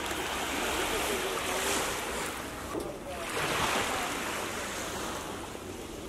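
Small sea waves washing onto a pebbly beach, surging twice.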